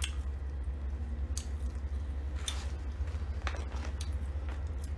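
A steady low hum, with a few faint, short soft clicks and rustles scattered through it.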